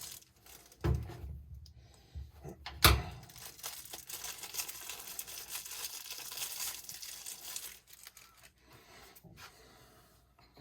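Small packaging bag being torn open and crinkled by hand, with two knocks about one and three seconds in, the second the loudest sound.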